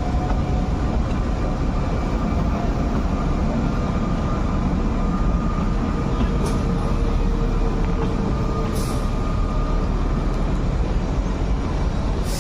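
Steady rumbling noise of the Kalka–Shimla narrow-gauge train, heard from inside a coach, with two brief high hisses about six and nine seconds in.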